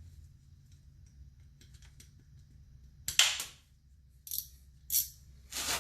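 Sharp metal clanks of hand tools and hardware being handled while a nut goes onto a shock absorber's top stud: one loud clack about three seconds in, two shorter clinks, then clattering near the end.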